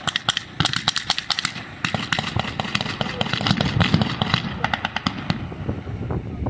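Blank-firing small arms in a reenacted infantry firefight: many sharp shots in quick, overlapping succession, with a dense rapid run in the middle like automatic fire.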